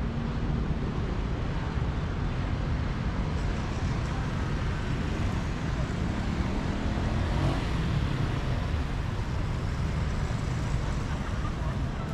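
Steady low rumbling background noise, like road traffic.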